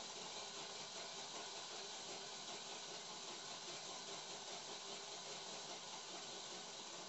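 Faint steady hiss.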